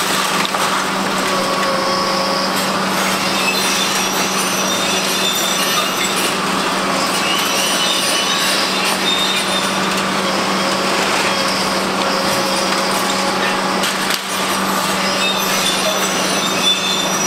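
Kobelco SK850 demolition excavators working: a steady diesel engine hum under load, with the crunching and cracking of concrete being crushed and scattered high-pitched squeals of metal.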